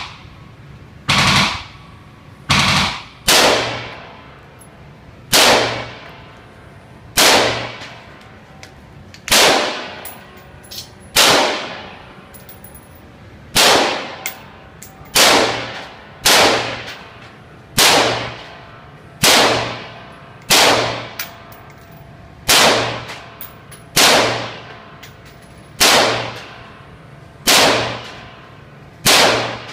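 AR-15 rifle fired in single shots at an indoor range, about sixteen shots at an unhurried pace of one every one and a half to two seconds, each shot ringing on in the room's echo.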